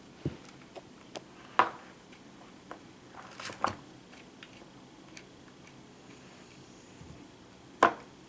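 Sparse clicks and light knocks, the loudest about a second and a half in and again near the end, from a Nile monitor lizard moving about on a desk among a computer keyboard and mouse.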